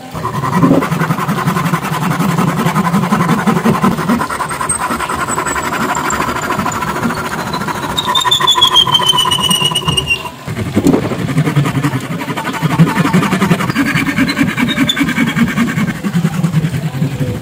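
Hand saw cutting through a small wooden block clamped in a bench vise, in fast back-and-forth strokes. The first cut stops about ten seconds in and a second cut starts a moment later. A thin high tone slides down in pitch during the first cut.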